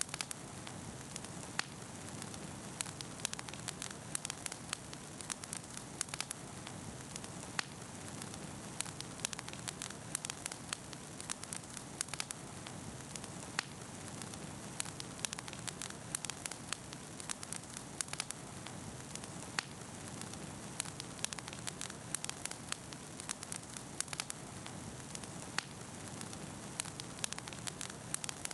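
Bonfire burning with steady crackling: many small sharp pops and snaps scattered irregularly over a constant soft hiss of flames.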